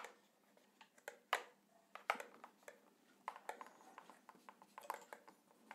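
Marker pen writing on a whiteboard: faint, short scratchy strokes at irregular intervals.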